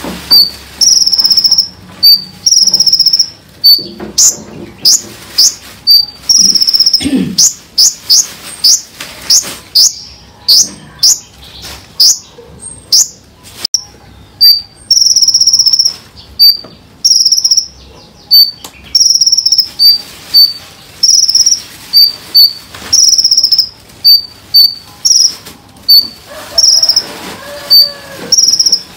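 Small songbird singing dense volleys of sharp, high-pitched notes: short repeated chips alternating with quick upward-sweeping whistles, several a second, with brief pauses between volleys.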